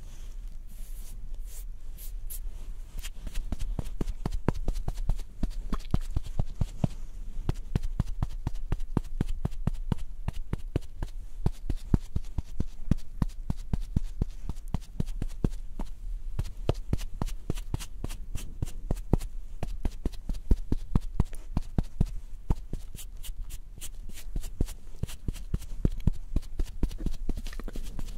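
A makeup puff patted over and over in quick, light taps, several a second.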